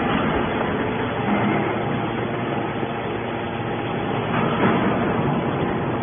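Hydraulic scrap-metal baler running, its hydraulic pump and motor making a steady drone while the ram pushes a compressed bale of metal shavings out of the discharge opening.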